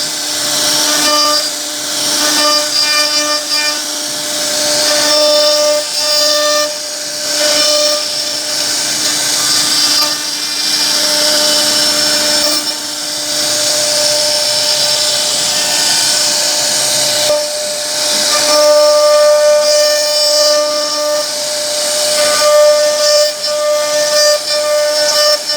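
CNC router spindle whining at a steady pitch while its bit cuts into a wooden board, the cutting hiss rising and falling as the tool moves along the carving path.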